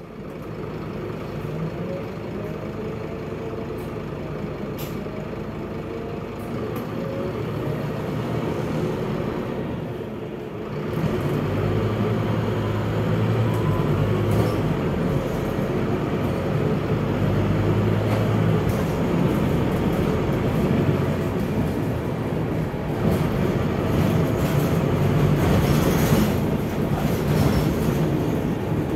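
Scania DC9 five-cylinder diesel engine and ZF Ecomat automatic gearbox of a Scania K230UB single-deck bus under way, heard from inside the cabin, with a faint rising gearbox whine. The sound dips briefly about ten seconds in, then runs louder and heavier.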